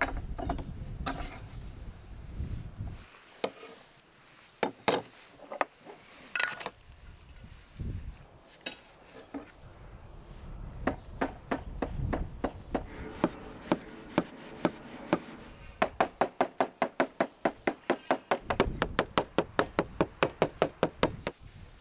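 Large kitchen knife chopping boiled quail eggs on a wooden cutting board. First come a few separate cuts, then rapid even chopping at about four to five strikes a second through the second half.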